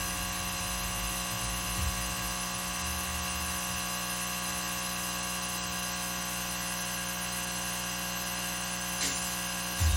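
A small electric motor humming steadily, a constant buzz with a fixed whine that does not change in pitch.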